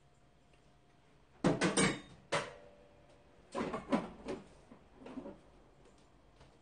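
Dishes and a spoon clattering in a few short bursts, about a second and a half in, again near two and a half seconds, around four seconds and once more near five seconds: tableware handled at a meal.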